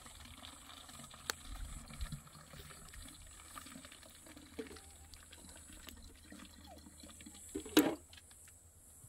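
Liquid poured from a plastic jug into a plastic bottle, filling it, with a few faint clicks. A single loud knock comes near the end.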